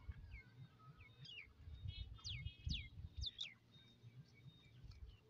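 Birds calling: a run of quick, sharply falling whistled notes, loudest between about two and three and a half seconds in, over a low irregular rumble.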